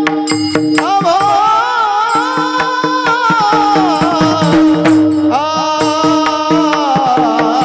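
Marathi Varkari kirtan devotional singing: a male voice sings long, wavering melodic phrases over a steady drone, with small brass hand cymbals (taal) keeping a regular beat. The singing pauses briefly around the middle and then starts a new phrase.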